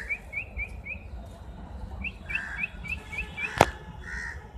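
A small bird repeats quick, short rising chirps, about five a second, in two runs, and crows caw a few times from about two seconds in. A single sharp click about three and a half seconds in is the loudest sound.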